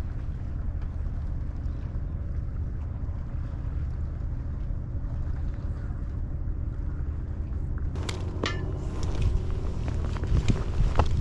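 Wind rumbling on the microphone, a steady low buffeting. From about eight seconds in come scattered clicks and knocks.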